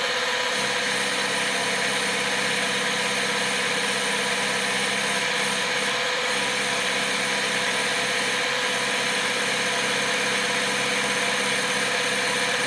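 Lathe running steadily under power, taking a final finishing cut. Its worn spindle bearings are held in check by about 25 kilos of preload.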